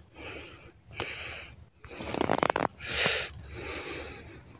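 Akbash shepherd puppy sniffing and snorting at the ground, short breathy bursts about once a second, with a louder, rapid fluttering snort a little past halfway.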